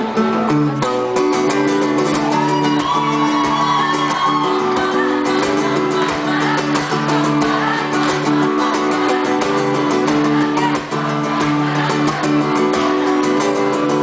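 Acoustic guitar strummed in a steady rhythm, an instrumental stretch of a live song with no singing.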